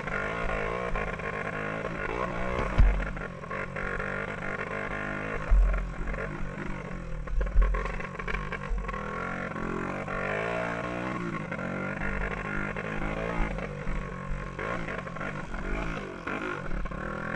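Small dirt bike engine in the 125–200 cc class, revving up and down through the corners and straights under racing load. A few heavy thumps cut through it, about three, five and a half, and seven and a half seconds in.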